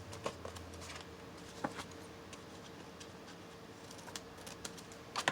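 Scattered light clicks and faint rustles of paper being handled and cut with scissors, over a faint steady hum.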